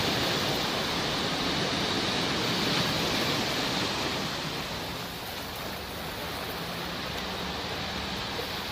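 Sea waves washing onto a shore in a steady, even wash, easing a little about halfway through.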